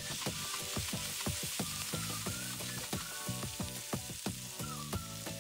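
Merguez sausage, onion and diced green pepper frying in oil in a pan, with a steady sizzle and frequent sharp crackles as the mix is stirred.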